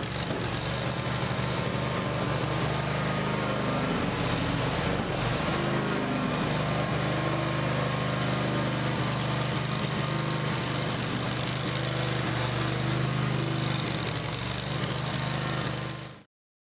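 WerkMaster TITAN XT propane concrete floor grinder running steadily as it polishes a concrete floor, its engine a steady hum under the whir of the grinding heads. The sound cuts off abruptly near the end.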